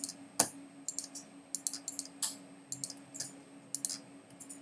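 Irregular clicking of a computer mouse and keyboard, about a dozen sharp clicks at uneven spacing, over a faint steady hum.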